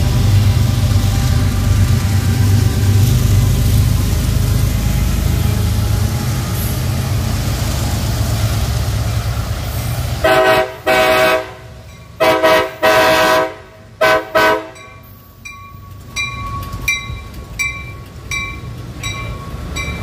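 Diesel freight locomotives rumbling past for about the first ten seconds. Then a train horn sounds several blasts, some long and some short, and a bell rings about twice a second as an Amtrak passenger train pulls in.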